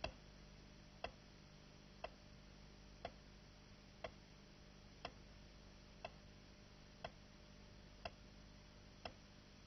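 Sharp clock-like ticks, evenly spaced about once a second, over a steady low hum and hiss of an old film soundtrack.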